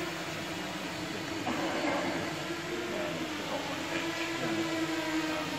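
Small electric radio-controlled model plane's motor and propeller buzzing steadily in flight, the pitch wavering slightly.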